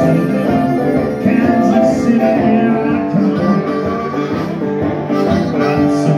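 Live blues band playing: acoustic guitar, electric guitar and harmonica together.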